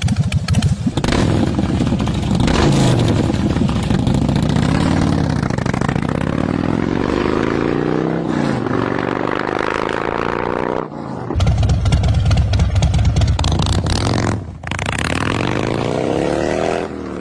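Harley-Davidson motorcycle engines running and being revved, the pitch rising and falling with each blip of the throttle. The sound changes abruptly a few times from one engine to another.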